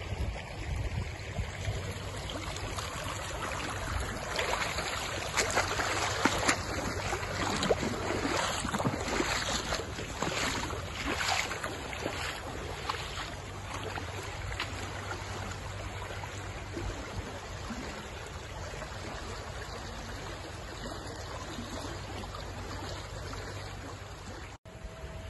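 Fast-flowing floodwater of a swollen river rushing steadily past the bank, with a run of short scuffs and knocks in the first half.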